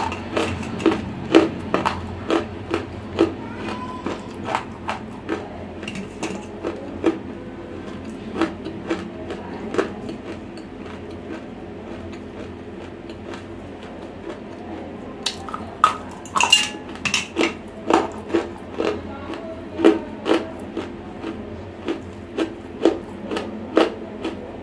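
Dry, semi-roasted clay chunks being bitten and chewed right at a microphone: irregular sharp crunches, often several in quick succession, thinning out for a few seconds around the middle.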